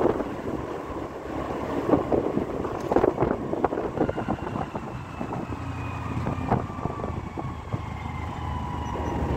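Road vehicle on the move: steady engine and road noise with wind on the microphone and irregular knocks. A faint whine falls slowly in pitch in the second half.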